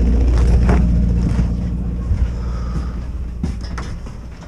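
A motor running steadily with a low hum, fading gradually toward the end, with a few scattered knocks.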